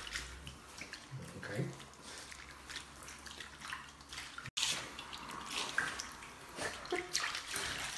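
Bathwater sloshing and splashing in a tub as hands rub down a wet dachshund, with scattered small splashes and drips.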